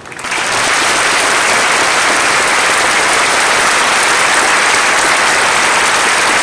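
Large audience applauding. The clapping swells in within the first half second and then holds steady.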